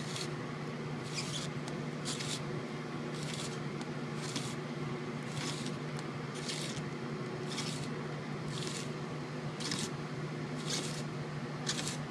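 Handheld funnel spiral slicer cutting a zucchini into noodle strands: a short crisp scraping cut with each twist, about once a second.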